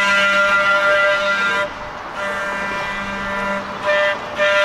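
Antique Brill single-truck trolley moving onto a curve with a loud, steady, pitched tone. The tone drops out briefly about two seconds in, comes back weaker, and returns at full strength near the end.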